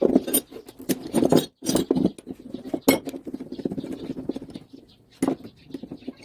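Metal clinking and clicking as a bearing puller is fitted and worked on the ball bearing of a washing machine motor's shaft. There is busy clatter with a sharp knock about three seconds in, then a run of quick fine ticks.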